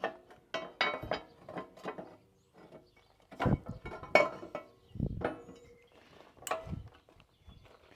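Irregular metal clanks and knocks on steel, about nine of them at uneven intervals, some ringing briefly, as a steel C-channel brace is forced into place on a skid steer grapple.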